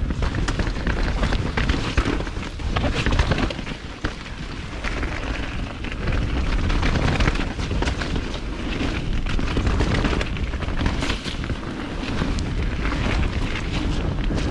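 Mountain bike ridden fast down a wet dirt singletrack: tyres rolling on dirt with a constant low rumble, and the bike clattering and knocking over bumps many times a second.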